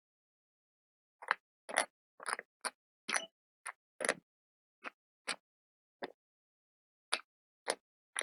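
Slate pencil wafer being bitten and chewed: a run of short, sharp crunches with dead silence between them, about one or two a second, beginning a little over a second in.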